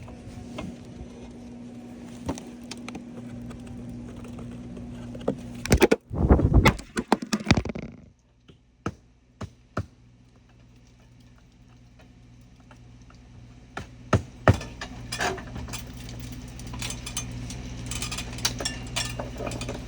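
Roof shingles and hand tools being worked during a shingle repair: scattered clicks and knocks, with a loud dense burst of scraping and crackling about six seconds in. A steady low hum runs underneath.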